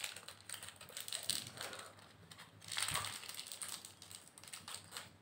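A small shiny foil-and-plastic toy wrapper crinkling and crackling as fingers pick and peel it open. The crackles are irregular, with louder bursts about a second in and near three seconds.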